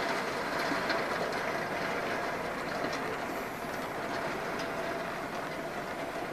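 Heavy rain and wind against a window pane: a steady rush with scattered light taps of drops on the glass. A faint steady hum runs underneath.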